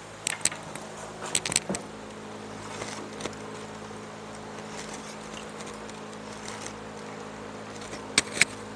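Sharp clicks and light taps from pegs and cane strands being worked in the holes of a chair frame during hand caning: a cluster in the first two seconds, one about three seconds in, and two close together near the end. A steady low hum runs underneath.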